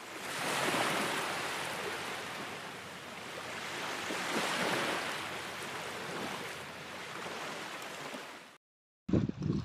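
Sea surf washing and churning over rocks, swelling twice and easing, then cut off abruptly near the end. A different scene follows with small birds chirping and wind rumbling on the microphone.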